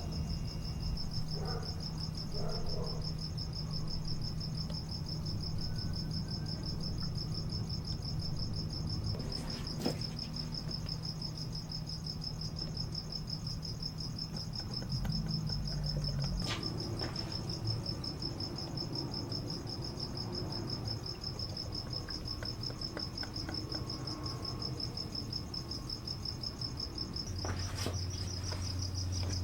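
A cricket trilling steadily in a fast, even pulse, with a low hum underneath.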